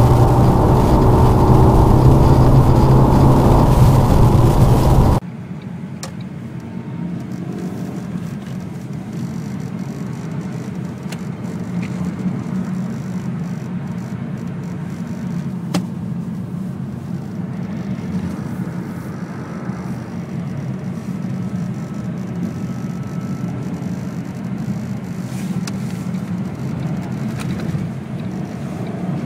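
Lada Vesta car driving on snow: loud engine and road noise for about five seconds, then a sudden drop to a quieter, steady low rumble of the car running, with a few faint clicks.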